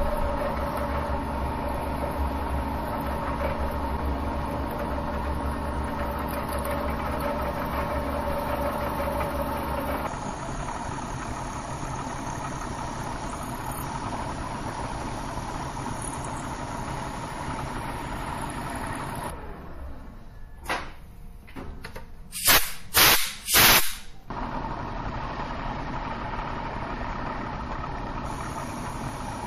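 Milling machine running with an end mill cutting inside a steel ring: a steady motor hum with the cutting noise of the tool. About two-thirds of the way through the sound drops away briefly, then several loud harsh bursts come close together before the steady running returns.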